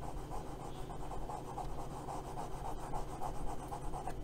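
A hard graphite stick, about as hard as a 5H pencil, being scrubbed back and forth on sketchbook paper to lay down shading, in quick, even strokes at about four a second.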